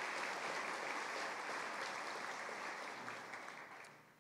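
Audience applauding, a steady patter of many hands that dies away near the end.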